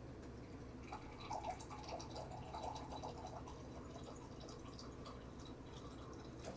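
Faint water flowing, strongest from about one to three and a half seconds in, with a few light clicks.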